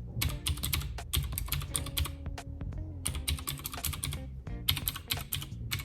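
Typing on a Das Keyboard 4 Professional mechanical keyboard: quick runs of clicky keystrokes with brief pauses between them, a bit typewriter-y in sound.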